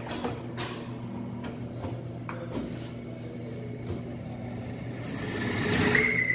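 Bench drill press motor running with a steady hum, with a few metal clinks as square steel tubing is handled at the press. Near the end the bit cuts into the steel, the sound growing louder, with a brief high squeal.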